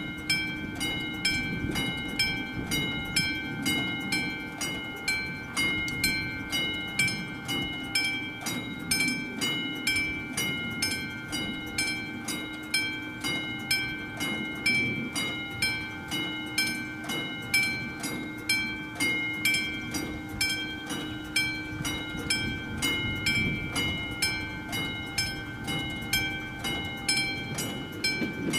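Classic electromechanical level-crossing bell ringing with steady, evenly repeated strokes, each leaving a metallic ring: the crossing's warning is active for an approaching train.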